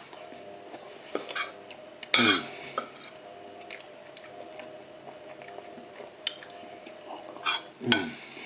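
Cutlery clinking and scraping on a plate while eating, with scattered sharp clinks over a steady faint hum. Two short falling vocal sounds break in, about two seconds in and near the end.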